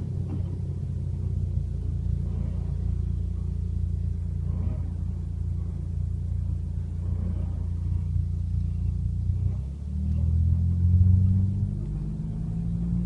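Ford Fiesta Mk7.5 EcoBoost engine running with a steady low rumble. A little under ten seconds in the sound dips, then the engine note rises and gets louder for a couple of seconds before settling back.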